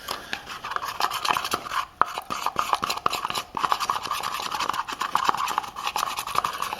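A stirring stick scraping and clicking rapidly and irregularly against a small container, mixing powdered graphite into non-detergent motor oil to make a lock lubricant.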